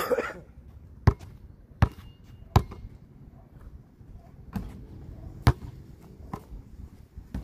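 Basketball bouncing sharply on hard pavement: three dribbles about three-quarters of a second apart, then two more bounces a few seconds later. Right at the start there is a loud knock and rustle as the phone filming is handled.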